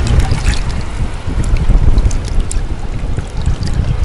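Shallow seawater sloshing and splashing around wading legs and a shovel digging into the sea bottom for shellfish, with a steady low rumble of wind on the microphone.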